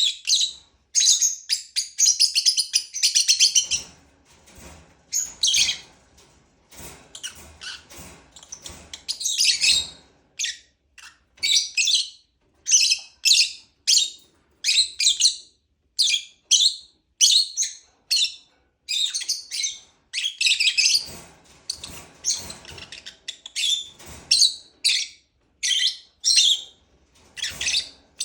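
Lovebird chirping: shrill, high-pitched calls repeated about once a second, with stretches of rapid chattering near the start and again a little past the middle.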